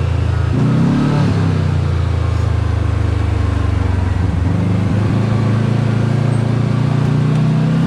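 Kawasaki Teryx KRX4 1000 side-by-side's parallel-twin engine running under way, steady and loud, with a brief rise in pitch about half a second in and a shift in its note about four and a half seconds in.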